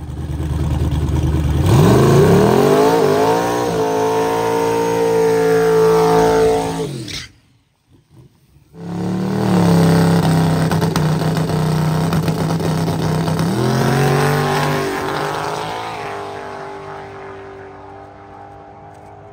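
Drag cars' engines at full throttle. The first climbs in pitch through several gear changes and fades down the track, then cuts off abruptly. A second engine is held at steady high revs, drops in pitch about 14 seconds in, and fades as the car pulls away down the strip.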